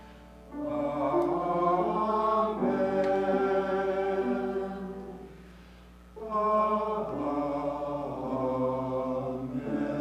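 Church choir singing in parts, in two phrases: the first comes in about half a second in and dies away around the middle, then the second starts a little after six seconds.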